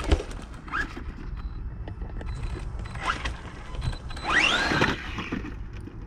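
Electric RC truck's motor whining up and down in short throttle bursts, on a 3S battery: a brief blip near the start, another about three seconds in, and the longest, loudest rev about four seconds in, over a steady low rumble.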